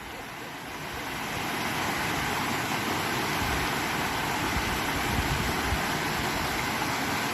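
Waterfall rushing, a steady hiss that grows over the first couple of seconds and then holds, with an uneven low rumble under it.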